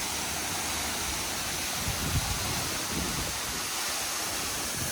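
A tall waterfall's falling water, a steady rushing hiss.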